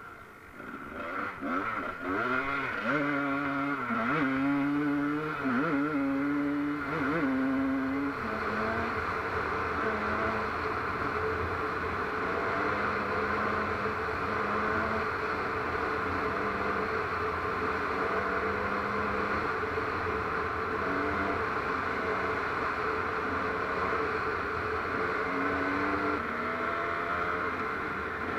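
Off-road vehicle's engine under way on a dirt track, revving up and down for the first eight seconds or so, then running at a steadier pitch with small changes, over a constant rushing noise.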